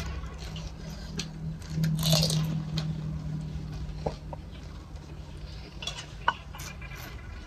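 Pani puri being eaten: scattered clicks and small crunches of the crisp puri shells and of plates, with a louder burst about two seconds in. A steady low hum runs underneath and fades near the end.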